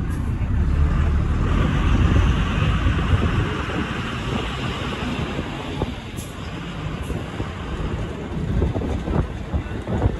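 Moving bus heard from inside: low engine and road rumble, with a rushing hiss of wind and tyre noise that swells about a second and a half in and eases off around six seconds.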